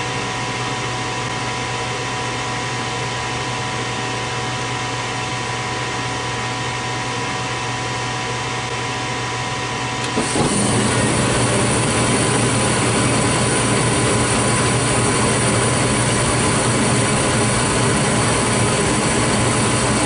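Gas furnace's draft inducer fan running with a steady hum while the hot surface igniter heats. About halfway through, the gas valve opens and the burners light, and the sound steps up to a louder, steady rush of burning gas that holds to the end.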